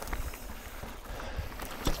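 A mountain bike rolling over rocky trail: tyres on rock and dirt, with clatter and sharp knocks from the bike. The loudest knock comes near the end, over a low rumble.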